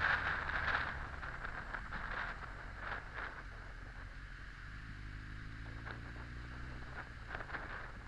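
Honda X4 motorcycle's inline-four engine running at low revs in slow traffic, with wind rush on the microphone. The wind hiss is strong at first and dies away within the first second or so as the bike slows, leaving the engine's low drone, which rises slightly in pitch past the middle.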